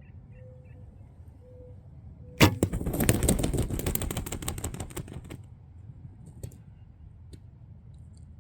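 Recurve bow shot at a turkey: a sharp crack about two and a half seconds in, followed by about three seconds of rapid wing flapping and thrashing that fades out.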